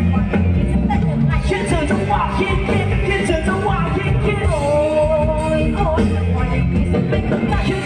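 Thai ramwong dance music played loud over a sound system: a held, wavering melody line over a steady, driving bass beat.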